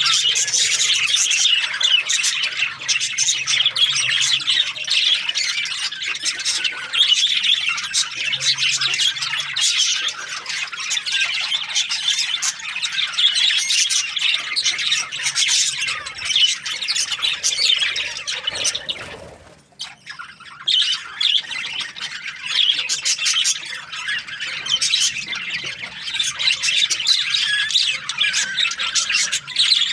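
Budgerigars chirping and chattering continuously, many calls overlapping, with a brief drop in the sound about two-thirds of the way through.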